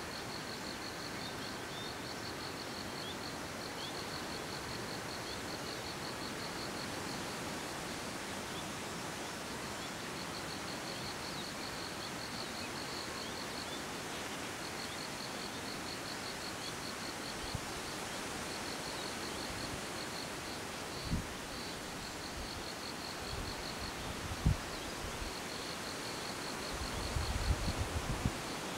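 Forest ambience under a steady hiss: an insect's fast, high, pulsed trill comes and goes in repeated bouts. Near the end, low bumps of wind on the microphone, growing into a cluster in the last couple of seconds.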